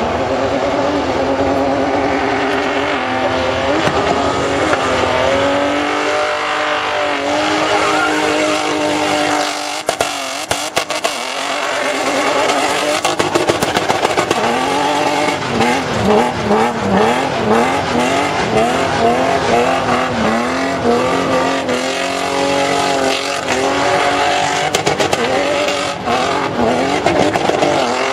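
Toyota Land Cruiser GX engine revving hard as the SUV drifts and spins its tyres, the pitch swinging up and down again and again, in quick rev swings during the second half, with a short drop about ten seconds in. Tyre squeal runs under the engine.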